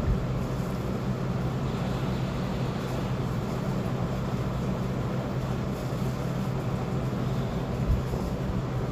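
Heat gun blowing hot air steadily, a constant fan hum under a rush of air, as it heats an ECU circuit board to desolder a surface-mount ignition coil driver chip.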